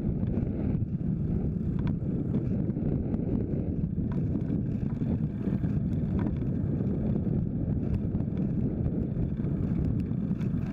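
Steady low wind rumble on the microphone of a camera mounted on a moving folding bike, mixed with tyre and road noise, with a few faint clicks.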